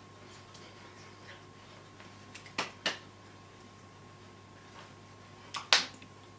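A person signing silently: a few short, sharp clicks and taps from the signing, two close together midway and a louder one about a second before the end, over a low steady hum.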